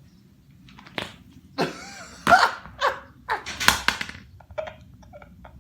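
Sweaty bare back peeling off a rubber horse-stall mat, giving a run of fart-like squelching blasts: a sharp snap about a second in, then several louder blasts between about one and a half and four seconds. Sweat makes the skin stick to the rubber, and it rips free as the back arches.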